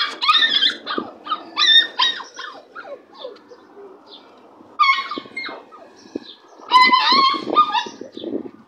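Staffordshire Bull Terrier puppies crying and yelping in short, high-pitched bursts with sliding pitch, in four clusters with quieter gaps between.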